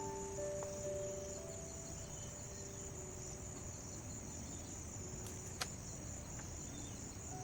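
Steady, high-pitched chirring of forest insects, under faint held notes of soft music. A single sharp tap sounds about two-thirds of the way through.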